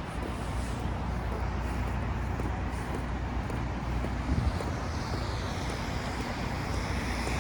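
Steady low rumble of a motor vehicle, with a rising whine near the end.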